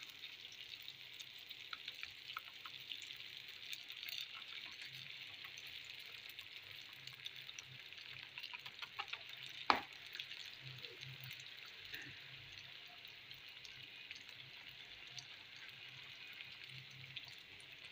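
Yeast-dough doughnuts frying in a pan of hot oil: a steady sizzle with small crackles as the rings puff up. One sharp click a little past the middle.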